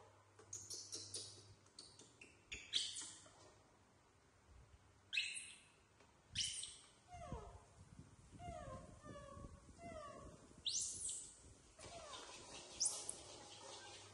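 Baby macaque monkeys calling: a run of short falling squeaks and coos, with a few brief, sharp high squeals mixed in.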